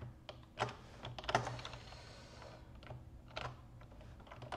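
Computer keyboard keys tapped in short, scattered strokes: a quick cluster about a second in, then single taps further apart.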